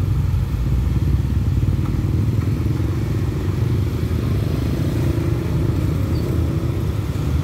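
A stream of scooters and small motorcycles running past close by at low speed, one engine note rising and falling over the others, with a car and a motorcycle-sidecar taxi going by among them.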